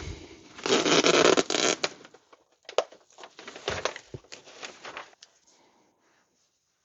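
Adhesive tape pulled off the roll with a rasping rip lasting about a second, followed by scattered rustles and taps of handling before it goes quiet.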